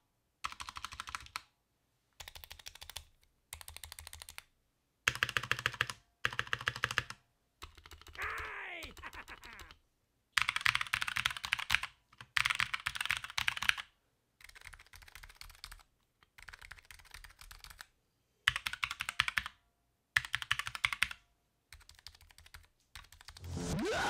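Typing on mechanical keyboards fitted with thick ABS G.Skill Crystal Crown keycaps: one floating-key board on Kailh Silver switches and one dampened board on Kailh Silent Pink switches. The keys sound solid rather than clanky. The typing comes in about a dozen short takes with silent cuts between them, some louder than others.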